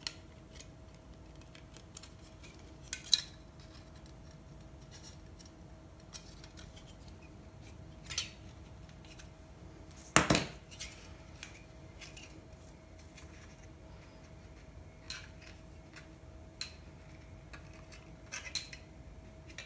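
A thin aluminium flashing strip and needle-nose pliers being handled as the strip is crimped and bent: scattered light metallic clicks and rattles, the loudest about ten seconds in. A faint steady hum lies underneath.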